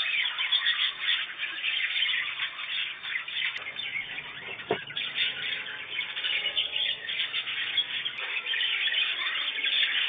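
A flock of caged budgerigars chattering and squawking in a dense, continuous stream of fast chirps, with one dull knock about halfway through.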